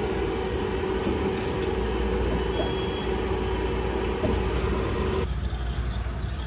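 Steady machine hum with a low rumble and a steady mid-pitched tone that cuts off suddenly about five seconds in; a high hiss joins about four seconds in.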